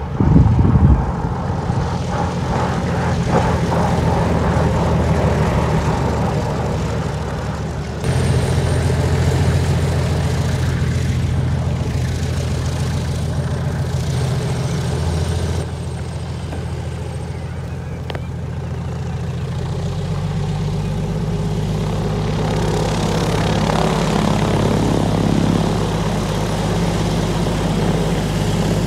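Piston engine and propeller of a single-engine light tow plane running steadily on the ground as it taxis, a steady low drone whose pitch shifts abruptly a few times. A brief loud low rumble comes near the start.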